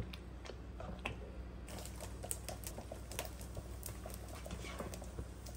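Thick spinach sauce for palak paneer simmering in a frying pan: irregular small pops and spatters as it bubbles, with a spatula stirring through it, over a low steady hum.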